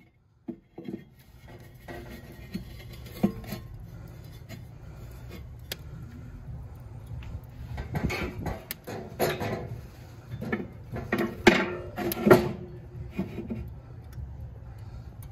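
Ceramic heat-deflector stone being fitted into a Char-Griller Akorn kamado grill, then the metal cooking grate set down over it: a run of clinks, scrapes and knocks of stone and metal, sparse at first and thickest and loudest in the second half.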